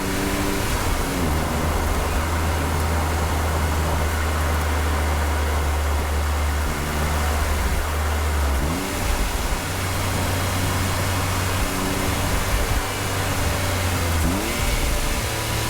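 Honda S660's small turbocharged three-cylinder engine running under way, with tyre and road noise. The engine note climbs sharply twice, about nine seconds in and again near the end, as the revs rise.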